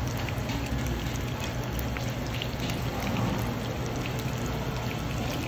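Flour-coated fish fillet sizzling in hot oil in a frying pan, a steady crackle with scattered small pops, over a low steady hum.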